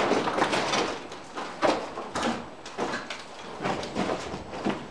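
Airsoft guns firing single shots, about ten sharp pops at uneven spacing, echoing off the concrete walls of a bunker.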